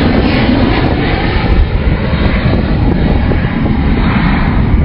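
Cessna Citation 550B business jet climbing out after takeoff, its twin rear-mounted turbofan engines giving a loud, steady roar.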